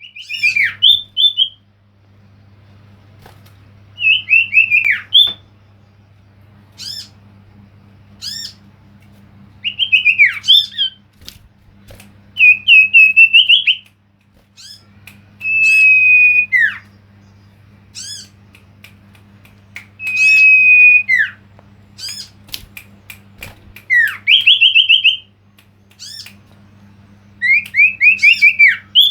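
Male common iora (cipoh) singing: a phrase every few seconds, some of fast chattering notes and some a long whistle that drops away at the end, with short sharp high notes between. A steady low hum runs underneath.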